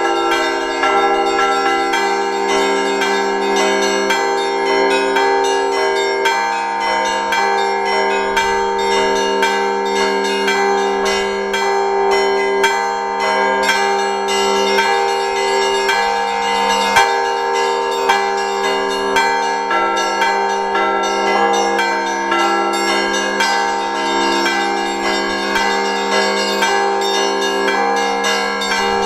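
Russian Orthodox church bells ringing in a continuous peal: rapid, dense strikes of smaller bells over the held ringing tones of the larger bells, many bells sounding at once.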